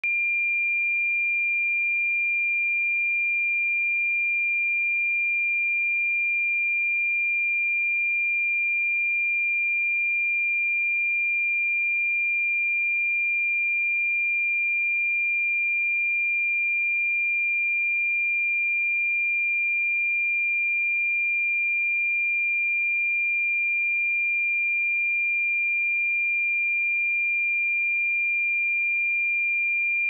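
A pure 2393 Hz sine-wave test tone, one steady high-pitched pitch held at a constant level with no change.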